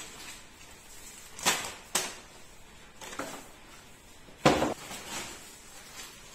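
Packets and small boxes of spices being put down on a wooden table: a few sharp knocks, the loudest about four and a half seconds in.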